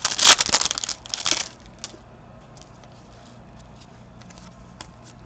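Foil wrapper of a Panini Certified hockey card pack being torn and crinkled open, a stubborn pack: loud crackling for about the first second and a half, then only faint rustling and a few light ticks as the cards are handled.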